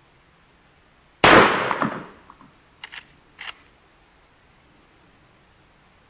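A shotgun fires a single loud shot about a second in, its report ringing out and dying away over about a second. Two short, sharp clicks follow a couple of seconds later.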